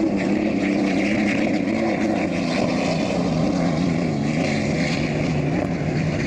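Unlimited racing hydroplanes running at speed, their piston aircraft engines a steady drone whose pitch wavers slowly up and down.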